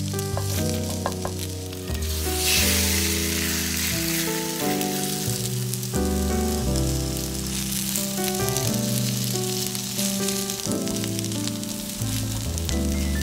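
Food sizzling in hot fat in a frying pan, the sizzle swelling for a moment about two and a half seconds in, over background music.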